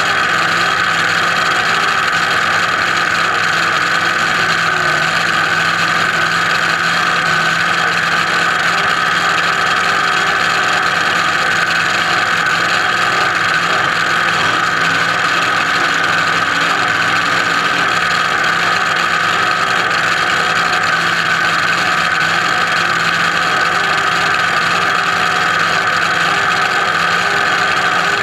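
Top Alcohol Dragster's engine idling steadily at a constant pitch, without revving.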